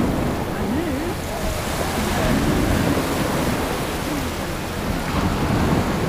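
Waves washing onto a sandy beach, with a low wind rumble on the microphone. Faint voices of people come through underneath.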